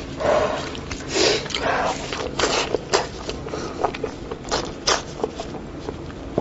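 Close-miked eating sounds from cooked sheep's head meat: wet chewing, sucking and squishing, with a few sharp lip smacks.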